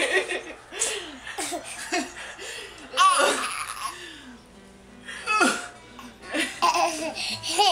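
A baby and a woman laughing in short bursts, with two high squeals about three and five and a half seconds in, over steady background music.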